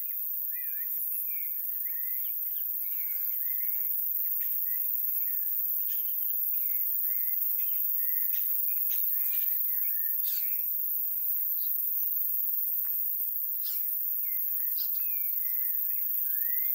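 Many small birds chirping and calling at once, with short chirps and quick up-and-down notes overlapping all through.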